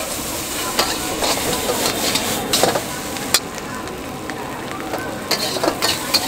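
Noodles sizzling in a hot wok while a metal spatula scrapes and clanks against it as they are stir-fried. The scraping stops for a couple of seconds in the middle, then starts again near the end.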